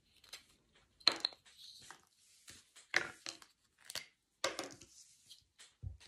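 Hands handling small craft items, a white plastic bottle lid and a permanent marker, on a table: several light clicks and knocks about a second apart, with faint rustling in between.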